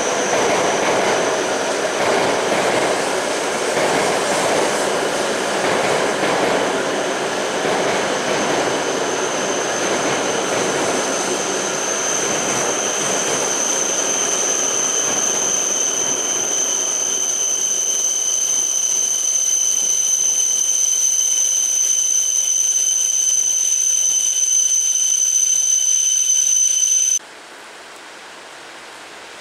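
E7-series Shinkansen train braking to a stop: the cars' rolling rumble fades as it slows, while a high, steady brake squeal grows louder. The sound cuts off suddenly near the end, leaving a faint hiss.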